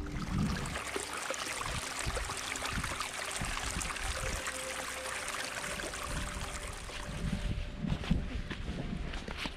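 Running water of a small mountain stream, a steady rushing hiss that starts abruptly.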